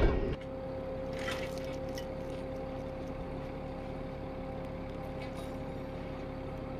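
Armored vehicle's engine running steadily at idle, a constant drone at one fixed pitch, after a short blast of noise at the very start. A few faint clicks sound about a second in.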